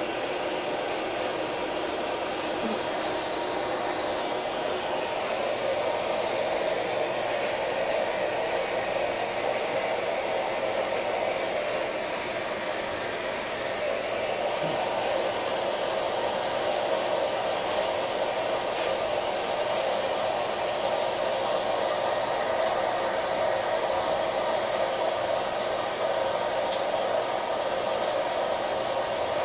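A steady, unchanging mechanical hum with a whooshing hiss, as from a running fan or blower motor.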